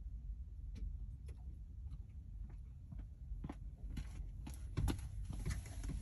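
Low steady rumble inside a parked car, with scattered faint light clicks and ticks that come more often near the end.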